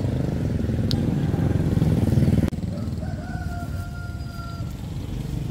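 Low engine rumble of passing motor traffic, growing louder and then cut off abruptly about two and a half seconds in. After that a rooster crows once, a held call of about a second and a half, over a quieter engine rumble.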